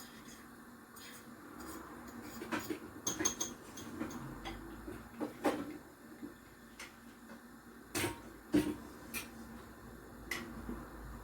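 Pots and kitchen utensils being handled: a scattering of irregular sharp clicks and knocks, the loudest two close together about eight seconds in.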